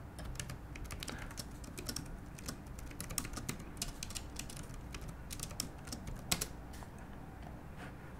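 Typing on a computer keyboard: a quick, irregular run of key clicks that stops near the end, over a low steady hum.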